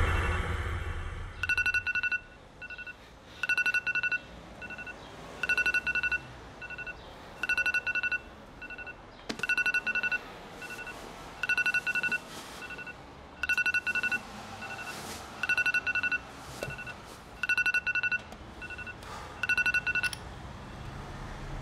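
Phone alarm beeping. Each cycle is a quick run of rapid electronic beeps followed by one short, softer beep, repeating about every two seconds. It cuts off about twenty seconds in, when it is switched off.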